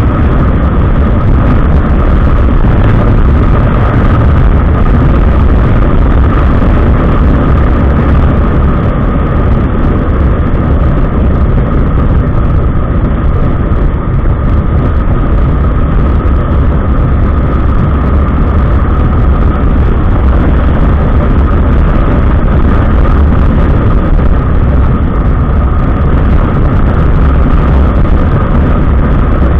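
Kawasaki ER-6n motorcycle's parallel-twin engine running while being ridden, a loud, steady rumble with no pauses.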